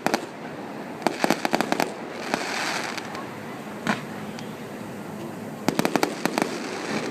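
Fireworks going off in clusters of rapid sharp cracks: a burst of crackling about a second in, a single bang near four seconds, and another rapid cluster a little before the end, with a hiss between the bursts.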